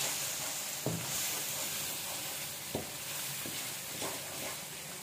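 Spice masala sizzling in hot oil in a nonstick kadai as a wooden spatula stirs it, with a few light knocks and scrapes of the spatula against the pan; the masala is being fried before the vegetables go in.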